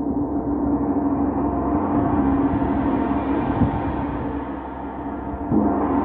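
Large hanging gong played with a mallet: a low, sustained ringing with many overtones that keeps going, and a fresh strike near the end.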